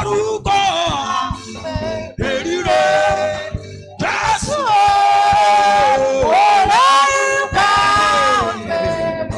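A solo voice singing a slow worship melody in long held notes that slide up and down between pitches, with light percussion underneath.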